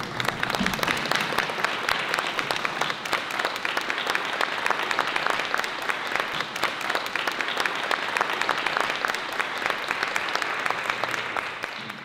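Audience applauding: dense, steady hand-clapping that begins to tail off near the end.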